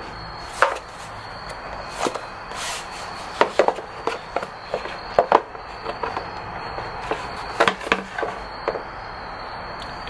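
Irregular clicks and knocks of a screwdriver and hard plastic parts as a Yamaha R6's airbox cover is unscrewed and lifted and the air filter handled.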